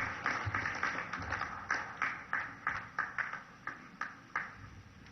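Audience applause thinning to scattered claps, about three a second, dying away about four and a half seconds in.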